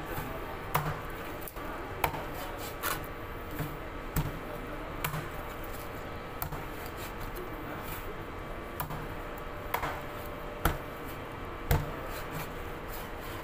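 A large knife chopping a Malabar trevally into steaks on a wooden cutting board. A sharp knock sounds each time the blade goes through the fish and strikes the board, irregularly, about once a second.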